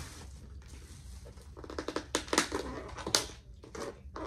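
Plastic takeout container being handled and its lid pried open: a run of sharp clicks and creaks from about a third of the way in, with a few more clicks near the end.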